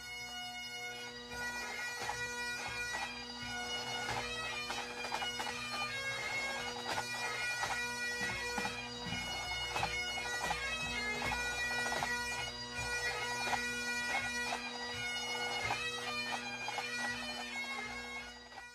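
Great Highland bagpipe playing a tune on the chanter over its steady drones, fading in at the start and out near the end.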